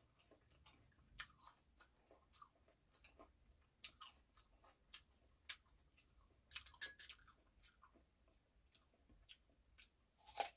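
Faint chewing of crisp, peeled persimmon slices: scattered soft crunching clicks, with a louder bite into a fresh slice near the end.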